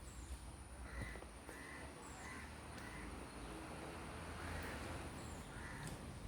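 Bird calls: short calls repeating about every half second to a second, with a few faint high chirps, over a steady low rumble.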